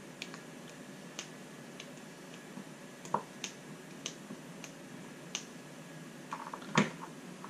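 Irregular small sharp clicks and ticks of a small screwdriver and small RC axle parts being handled while a screw is driven, with a louder knock and a quick run of clicks a little before the end.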